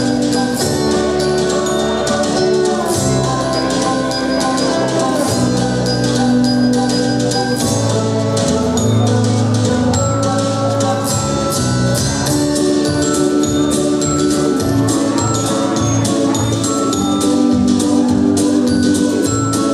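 Lively instrumental music with mallet percussion and bell-like tones: many quick struck notes over a changing bass line.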